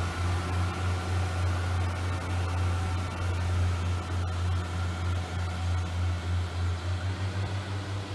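Pacer diesel railbus pulling away, its underfloor engine giving a steady low drone that turns throbbing about seven seconds in.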